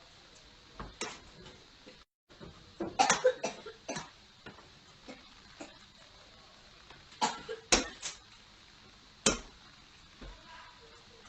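Scattered sharp knocks and clatters over a steady hiss, heard through a security camera's microphone. A quick cluster comes about three seconds in, and a few single knocks follow later, with a brief dropout to silence just before the cluster.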